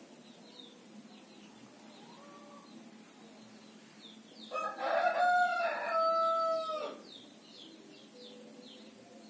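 A rooster crowing once: one loud call of about two and a half seconds, starting about halfway through, held in two parts and dropping away at the end.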